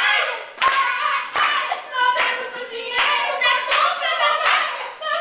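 A small group singing a folk-style song together, with rhythmic hand claps.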